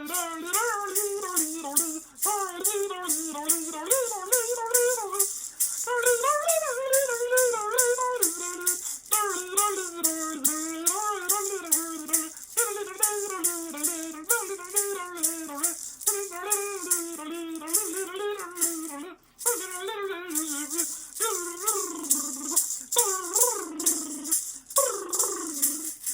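A woman's wordless improvised singing, the pitch sliding and wavering in long melismatic phrases, over a hand shaker rattled in a steady rhythm of about two strokes a second.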